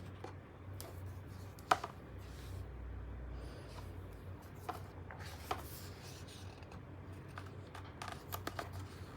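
A book being handled: paper rustling, with a few soft clicks and taps, the sharpest about two seconds in, over a faint low hum.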